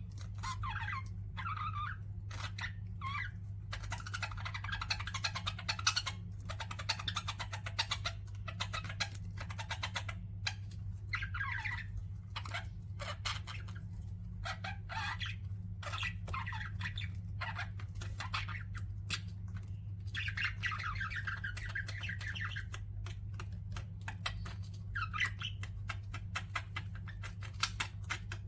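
Pet budgerigars chirping and warbling: a rapid run of short chirps broken by longer warbling stretches, over a steady low hum.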